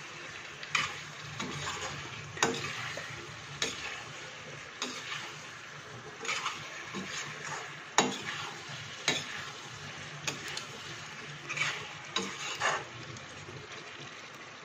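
A perforated metal spatula scrapes and knocks against a metal kadhai about once a second, stirring cubed pumpkin sabzi over a low, steady sizzle.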